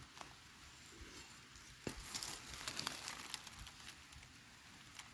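Fingers scraping and picking through loose sandy soil around a wild yam tuber, a faint crumbling and crackling with a few small clicks, thickest a couple of seconds in.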